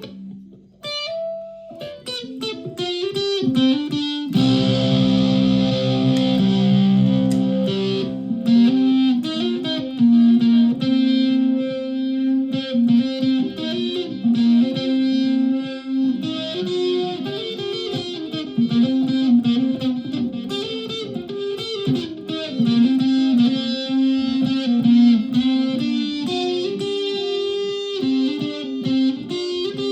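Flight Centurion solid-body electric ukulele played through a home-built clone effects pedal and a PA speaker: a few picked notes, a held strummed chord from about four to eight seconds in, then running picked melody lines.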